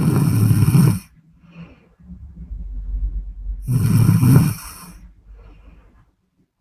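A woman snoring in her sleep: two loud snores about four seconds apart, each lasting about a second, with quieter low breathing between them.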